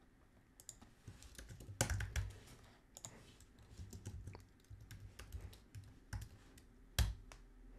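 Typing on a computer keyboard: irregular key clicks, with two heavier key strikes about two seconds in and near the end.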